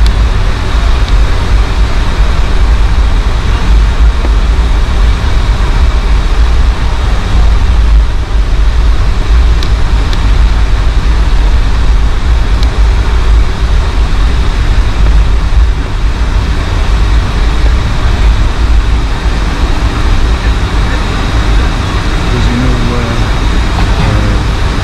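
Cabin noise of a Boeing 757-200 taxiing after landing: a loud, steady low rumble from the aircraft rolling with its two Rolls-Royce RB211-535E4 engines running.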